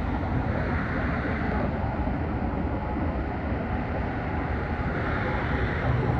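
Steady low rumble of a distant approaching freight train led by diesel locomotives, blended with highway traffic noise.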